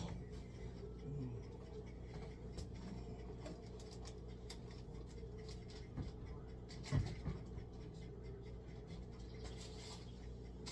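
Quiet kitchen room tone: a steady low hum, with a few faint clicks and a soft knock about seven seconds in.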